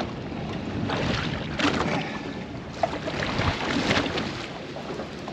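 Wind buffeting the microphone and water splashing against a boat's side, with irregular short knocks and gusts.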